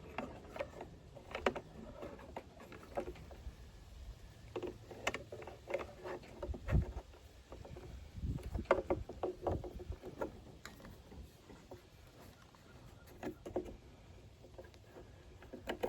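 Irregular small clicks, scrapes and light knocks of a hand-bent wire hook being worked down inside a backpack blower's plastic fuel tank to fish out the fuel filter, with a few duller thumps of the tank being handled.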